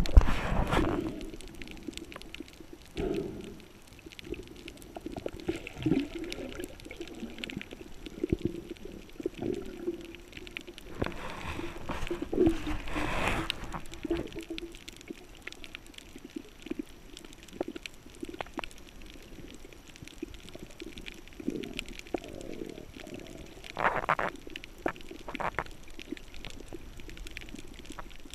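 Underwater sound of a scuba diver breathing: noisy bursts of exhaled bubbles, a long one in the middle and two short ones near the end, over a low gurgling murmur with scattered clicks.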